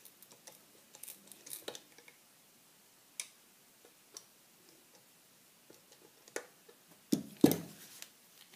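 Small metallic clicks and taps of a screwdriver working at the mainspring screw on the front of a stainless revolver's grip frame, with a cluster of louder knocks near the end.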